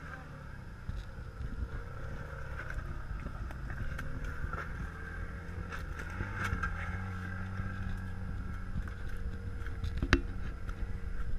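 A Toyota Land Cruiser Prado 4WD's engine running at low revs as it crawls over rock and pulls away on a dirt track, with scattered clicks of stones and sticks under the tyres and one sharp knock near the end.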